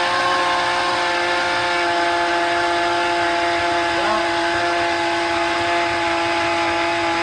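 Electric blender motor running at a steady speed with a constant whine, blending chunks of potato, apple and stock into soup.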